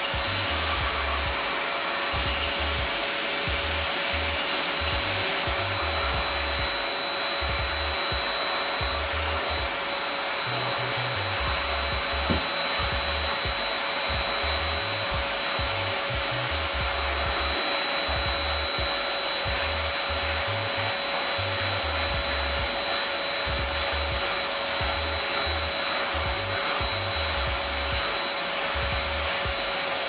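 Black & Decker Multipower Pro 18-volt cordless vacuum cleaner running steadily on its max setting, a constant motor whine with rushing suction through its hand hose and nozzle as it picks up debris from the carpet.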